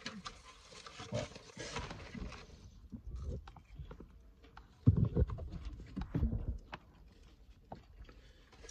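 Handling noise from a phone camera gripped in the hand: fingers rubbing over the microphone, light clicks, and two louder dull bumps about five and six seconds in.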